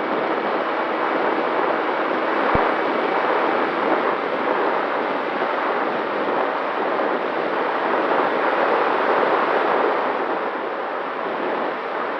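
Steady rushing wind noise over the onboard microphone of a Mini Talon FPV plane in flight, with a faint steady motor tone beneath and a single brief low click about two and a half seconds in.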